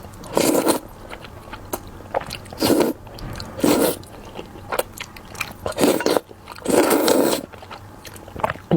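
Close-miked eating sounds: a person biting and chewing food, with several louder wet bursts spaced a second or so apart.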